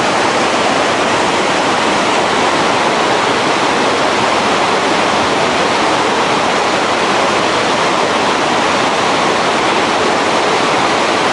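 The Dudh Koshi (Milk River), a fast glacial river, rushing over rocks: a loud, steady white-water noise.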